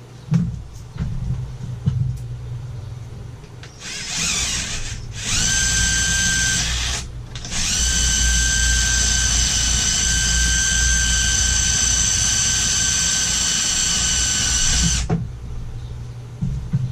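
Electric winch motor whining as it hoists a lathe bed of roughly 450 to 500 pounds upright on a strap. It runs in two short starts about four seconds in, then steadily for about seven seconds before cutting off; a few knocks come before it.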